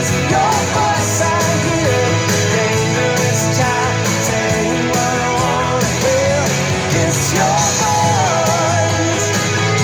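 Rock song played on guitars, with a voice singing a melody that bends and slides in pitch over steady chords.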